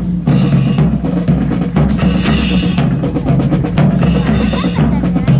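Marching drum cadence: bass and snare drums beating a steady rhythm for a rifle drill team.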